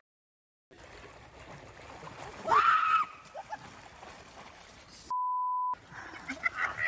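Steady rush of shallow river water, with a short rising cry about two and a half seconds in. About five seconds in, a single flat beep sounds for just over half a second: a censor bleep.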